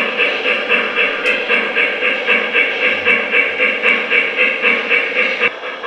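Electronic sound system of an O gauge model Shay steam locomotive chuffing at a steady rhythm, about four chuffs a second, as the log train runs. The sound drops off sharply about five and a half seconds in.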